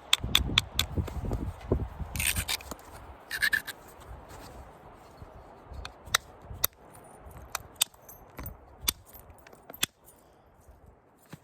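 Sharp clicking strikes of an elk bone billet against a stone preform: a quick run of taps at first, then a few spaced single strikes. Two short scraping sounds come about two and three and a half seconds in.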